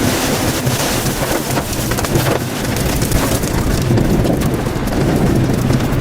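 Storm noise: wind buffeting the microphone over falling rain, a loud steady rush.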